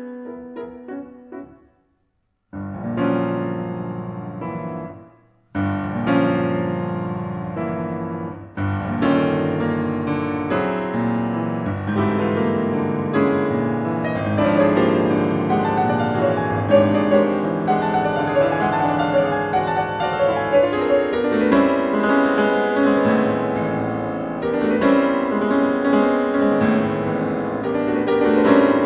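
Solo grand piano playing classical music. A phrase dies away about a second and a half in, and after a short silence a new passage starts with held chords, pauses again briefly about five seconds in, then runs on in continuous, fuller playing.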